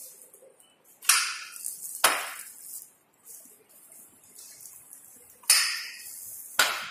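Four sharp knocks with a brief ring: a pair about a second in, and another pair about a second apart near the end.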